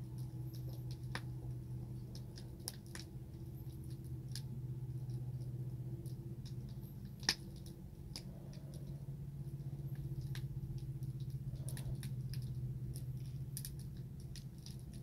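Wood fire crackling with scattered pops, one sharper pop about seven seconds in, over a steady low hum.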